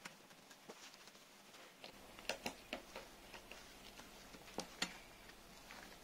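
Scattered light clicks and ticks of fingers handling a small screw and the metal wire fan guard, pushing through faux fur, with a few sharper clicks about two seconds in and again near five seconds.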